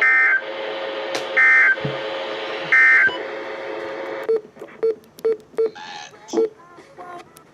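Emergency Alert System end-of-message code: three short bursts of the warbling SAME digital data tone, about a second and a half apart, closing the flash flood warning. About four seconds in, a run of short electronic beeps follows.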